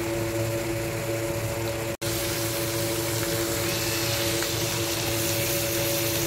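Prawns sizzling in hot oil in an aluminium kadai, a steady hiss over a constant low hum, with a momentary break about two seconds in.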